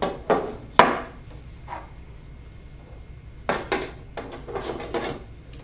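Metal top mounting plate being set onto a metal conversion-kit chassis: two sharp clanks in the first second, the second louder, then a run of lighter clacks and rattles as it is fitted into place.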